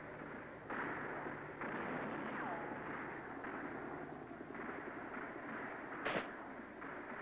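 Battle sounds of gunfire and explosions: a string of sudden blasts, a short falling whistle about two and a half seconds in, and one sharp crack about six seconds in, the loudest of them.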